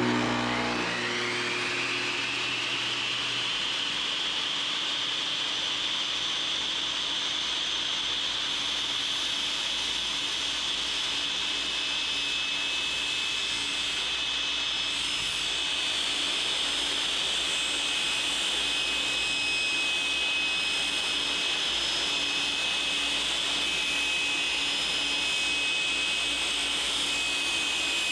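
iQMS362 dry-cut masonry saw switched on: its motor and blade spin up with a whine that rises in pitch over about two seconds, then run steadily at full speed.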